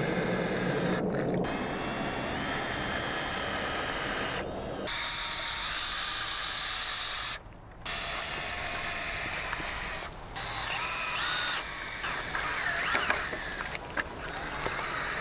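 Cordless drill driving screws into two-by-four wood framing, its motor whine rising and falling in short runs, broken off abruptly several times.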